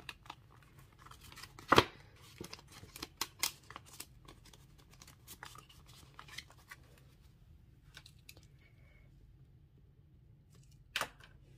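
Paper banknotes being counted by hand and slipped into a paper envelope: quiet rustles and light snaps of the bills, with one sharper snap about two seconds in.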